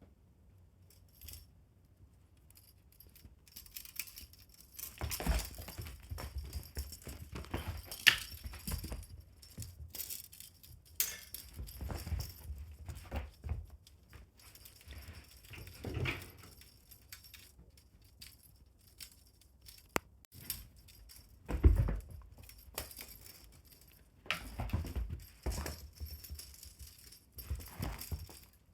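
A fishing-rod teaser toy jingling and rattling in irregular bursts as pets play with it. Scattered thumps, the loudest about 22 seconds in, are mixed in; the first few seconds are quiet.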